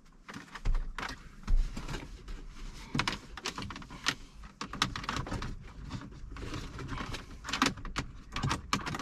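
Wiring and plastic dash parts rustling and scraping, with irregular sharp clicks, as a wire is fished through an opened dashboard.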